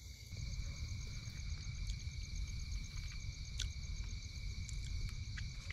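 Night insects, crickets, trilling: several steady high tones, one of them pulsing fast and evenly, over a low rumble and a few faint clicks.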